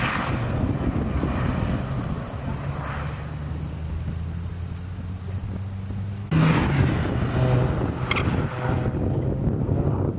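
Engines of cars lapping a road course. A car's engine pulls away out of the chicane and eases off over the first six seconds, then the sound jumps louder about six seconds in as the next car's engine comes up on the chicane.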